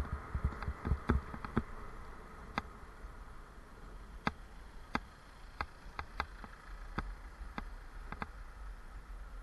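Bicycle and its mounted camera rattling over the road while riding: irregular sharp clicks and ticks, a few a second, over a faint steady buzz and a low rumble.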